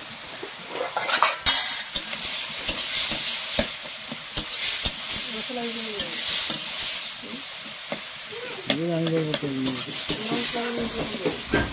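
Tomatoes and potato cubes sizzling in hot oil in a steel kadai, with a spoon clicking and scraping against the pan as it stirs. The sizzle grows louder about a second in, as the potatoes go into the pan.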